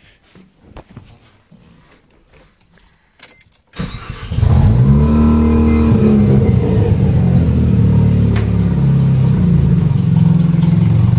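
1986 Mazda RX-7 FC non-turbo's 13B two-rotor rotary engine starting about four seconds in, its speed rising and falling back, then settling into a steady idle. A few faint clicks come before it starts.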